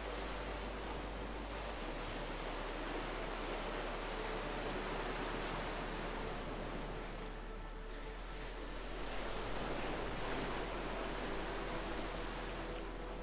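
Ocean waves washing in and drawing back, swelling twice, over faint sustained notes of ambient music.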